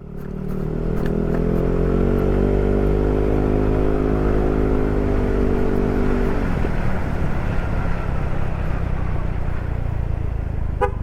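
Yamaha NMAX scooter's engine running through a Proliner SR Neo Silent aftermarket exhaust, a steady exhaust note that fades in at the start. About six and a half seconds in, its even pitch gives way to a rougher, noisier sound.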